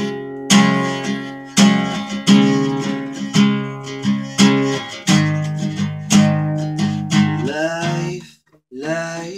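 Acoustic guitar strumming chords in a steady rhythm as a song's intro. Near the end a man's voice starts singing over it.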